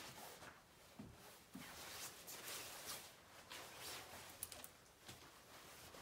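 Near silence with faint rustling of a coat and bag being handled and soft footsteps on carpet, with a couple of light clicks about four and a half seconds in.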